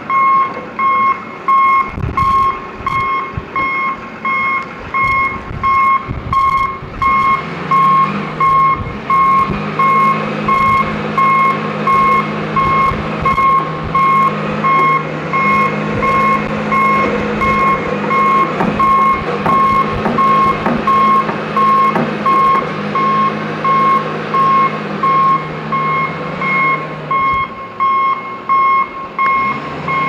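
Wheel loader's back-up alarm beeping steadily about once a second, with the Case 621E's diesel engine coming up to a steady working note about eight seconds in as it pushes snow. A few clanks come about two-thirds of the way through.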